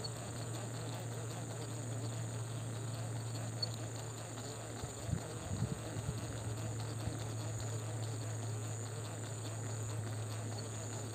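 Steady high-pitched chirring of insects such as crickets over a low steady hum, with a few soft low knocks about five seconds in.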